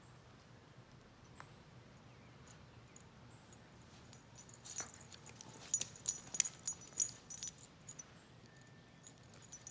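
A puppy tugging and shaking a plush toy. It is quiet for the first few seconds, then from about four seconds in comes a flurry of light clicks and small jingles that thins out near the end.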